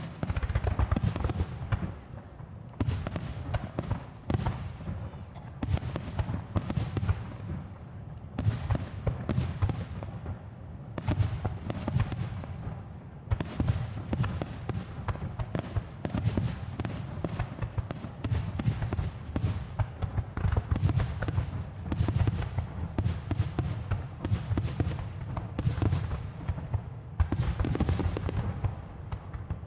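Aerial fireworks shells bursting close by in a dense, continuous barrage: deep booms overlapping one after another, with sharp cracks and crackle between them.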